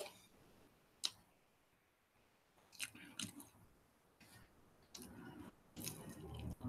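A person chewing and biting pizza: quiet, scattered mouth sounds, with a sharp click about a second in and a few more clicks around three seconds.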